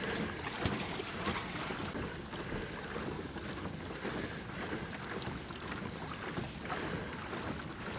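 Fairly quiet, steady water and wind noise from a small boat moving on a lake, with wind buffeting the microphone.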